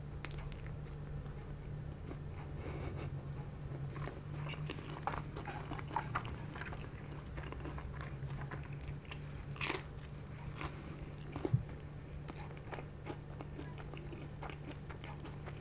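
Close-miked chewing and biting of pizza crust, with scattered short crunchy clicks, over a steady low hum.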